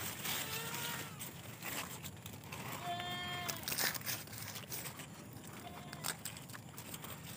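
Dry corn leaves and husks rustle and crackle as the plants are brushed and an ear is handled. A farm animal bleats once, short and high, about three seconds in, after a fainter call near the start.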